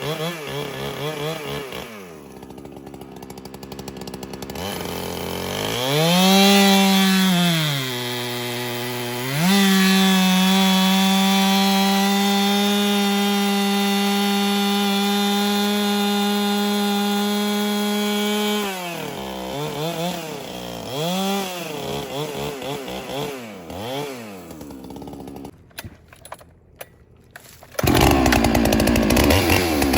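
Two-stroke Holzfforma chainsaw revving to full throttle and holding a steady high whine for about ten seconds, then dropping back and blipping the throttle. A loud, rougher stretch near the end.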